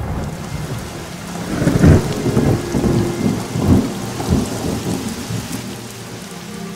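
Thunderstorm: steady rain hissing with rolling thunder, the loudest rumble about two seconds in and further rumbles around four seconds.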